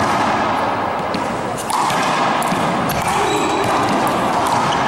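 Handball rally: a hard rubber handball struck by hand and smacking off the front wall and the floor in several sharp hits from about a second and a half in, over a steady hiss, with a brief high squeak near the middle.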